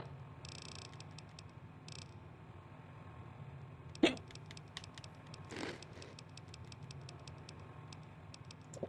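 A man hiccuping: one sharp, loud hiccup about four seconds in, and a softer one about a second and a half later.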